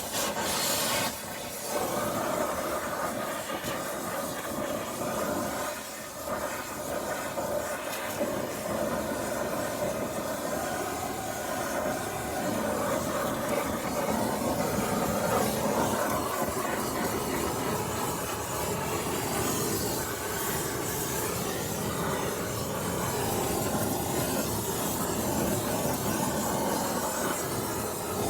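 Oxy-fuel torch flame hissing steadily as it burns at baler net wrap wound around a wheel hub.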